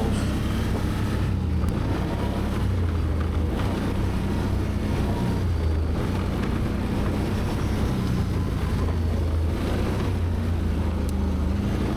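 ATV engine running steadily while riding along a trail: a low hum that rises and falls slightly with the throttle.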